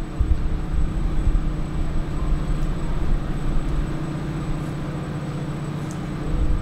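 A steady low engine drone with a fluctuating low rumble underneath.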